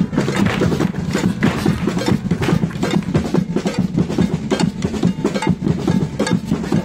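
Rapid, sharp hand-clapping and stamping in an uneven rhythm, several strikes a second, like flamenco palmas and footwork with little melody behind it.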